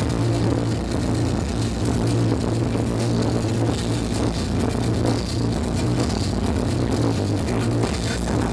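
Industrial electro band playing live through a loud festival PA, heard from within the crowd: dense electronic music with a heavy, sustained synth bass.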